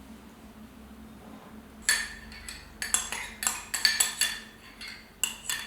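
A metal spoon clinking and scraping against a dish, starting about two seconds in, several quick strikes a second.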